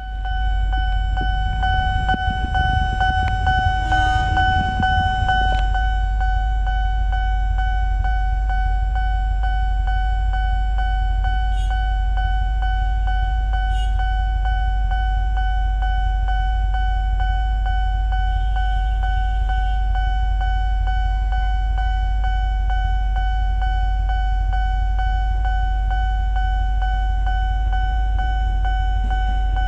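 Railway level-crossing warning bell sounding continuously at one steady high pitch, over the low rumble of idling engines.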